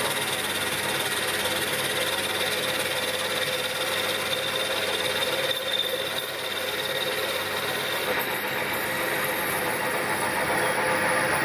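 Myford Super 7B lathe running steadily while an inserted-tip parting tool cuts dry into a spinning aluminium bar, with a faint steady whine on top. The sound dips briefly about six seconds in.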